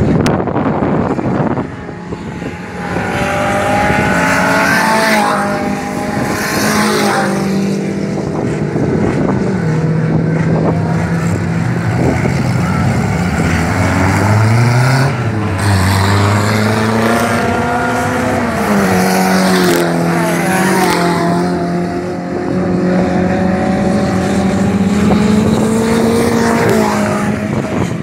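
Several small race cars' engines running hard on a dirt track, overlapping one another. Their pitch repeatedly climbs as they accelerate through the gears and drops as they lift off or shift, with one engine rising while another falls around the middle.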